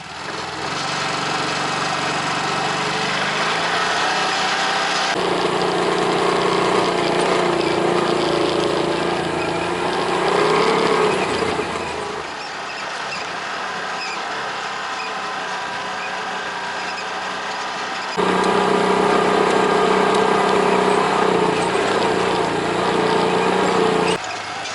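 Off-road vehicle engine running on a trail, its pitch wavering with the throttle. The sound changes abruptly several times, about every five to seven seconds.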